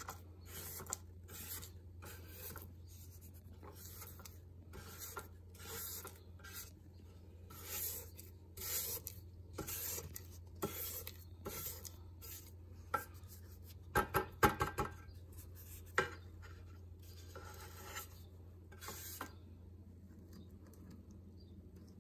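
Thermomix spatula scraping creamed butter and brown sugar down the sides of the stainless steel mixing bowl: repeated rasping strokes, about two a second, with a few sharper knocks about two-thirds of the way through. The strokes stop a couple of seconds before the end, over a low steady hum.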